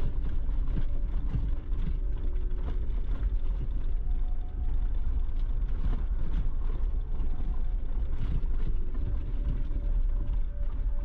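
Off-road vehicle driving on a rough dirt trail: a steady low rumble of engine and tyres with a constant hum, and scattered small clicks and knocks from gravel and rattles.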